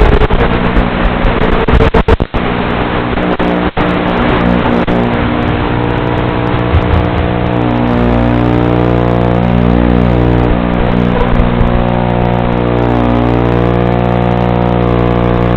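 Emax Hawk 5 FPV quadcopter's brushless motors buzzing, the pitch shifting up and down with the throttle. The sound drops out sharply a few times in the first four seconds.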